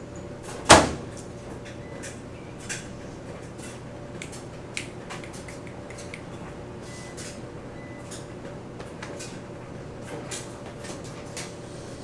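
Door of a commercial front-loading washer shut with a loud bang about a second in, followed by light clicks and taps of handling the washer's door and pressing its control-panel buttons over a steady machine hum.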